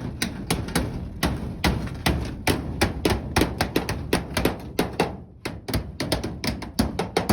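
A hammer striking repeatedly in quick, uneven blows, about two to three a second, during aluminium roofing work.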